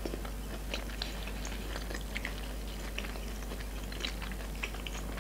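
Chewing of boiled beef tongue, picked up close: soft, scattered small clicks and mouth sounds.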